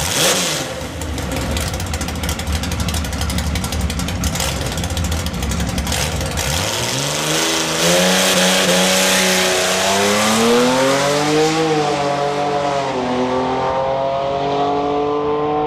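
Slant-six drag car's inline-six engine idling with a steady low rumble, then revved up and held at launch revs before launching down the strip. Its pitch climbs and falls back at each gear change as it pulls away.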